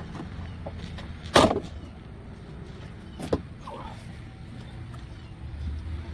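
Nissan 370Z OEM side skirt being pried off the car's body, its remaining body clips letting go with two sharp snaps about two seconds apart, with smaller clicks and plastic rattle in between.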